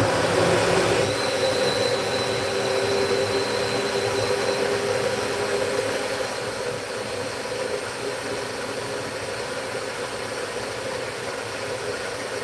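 Single-serve personal blender motor running steadily, blending a smoothie, with a little less loudness after the first few seconds.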